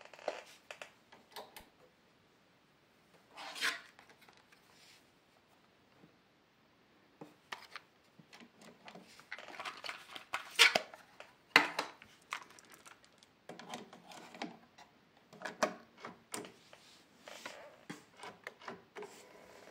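Handling noise from a cassette deck and cassette: irregular sharp plastic clicks and clacks mixed with brief rubbing and scraping. The loudest clicks come about ten to twelve seconds in.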